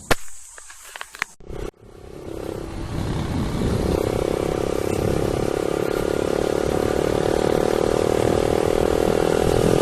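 Yamaha YBR 125's single-cylinder four-stroke engine running with its exhaust silencer removed, the motorcycle under way. A few sharp clicks come first, then the engine and road noise build over about two seconds and hold steady.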